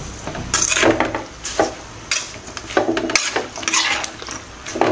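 Metal spoon stirring shredded cabbage and diced carrots in an aluminium kadai, a run of scraping strokes against the pan.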